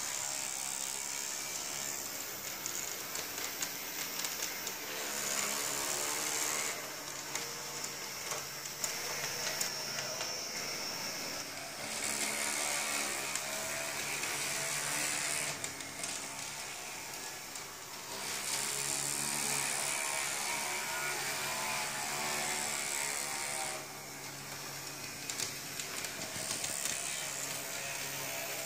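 Small Halling electric motor of a model tram whining as the tram runs around the layout track. The sound grows louder and quieter in turns every few seconds.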